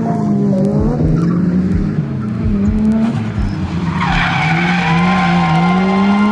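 Drift car's engine held high in the revs, its pitch wavering up and down with the throttle, with the tyres screeching loudly from about four seconds in as the car slides.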